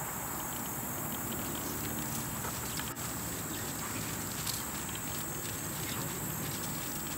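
Faint hoofbeats of a chestnut Connemara–Quarter Horse cross gelding trotting on a dirt arena, over a steady high insect buzz.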